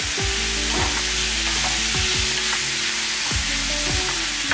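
Large onion pieces frying in hot oil with cumin and curry leaves in a pan, a steady sizzle that has browned them. A light background tune plays under the sizzle.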